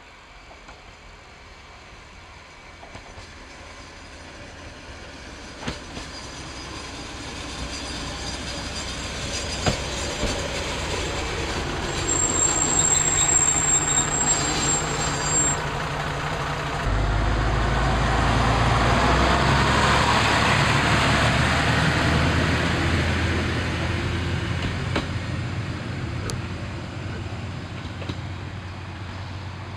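A Noto Railway NT100 diesel railcar coming closer and louder on the rails, with a thin high wheel squeal for a few seconds near the middle. A strong low diesel engine note then comes in and dominates as the railcar runs past, and fades away toward the end.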